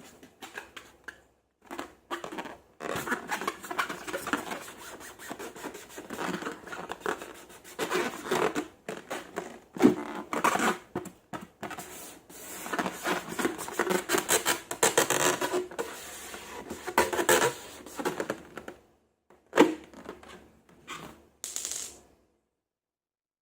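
Slime being handled and squished by hand, with rapid, irregular sticky crackles and clicks that stop abruptly near the end.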